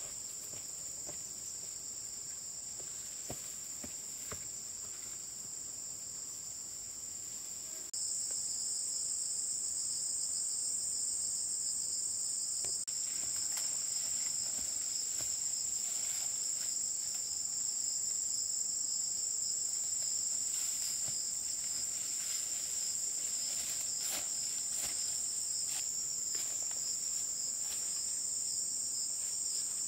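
Steady high-pitched chorus of forest insects, stepping up suddenly in loudness about eight seconds in, with faint scattered rustles and clicks of someone moving through undergrowth.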